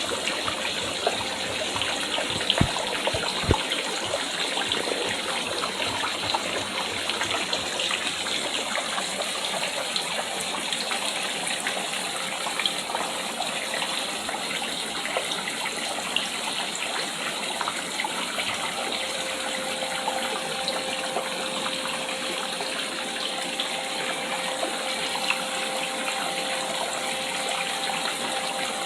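Water falling steadily into a pond in a small cascade, with an even, unbroken splashing rush.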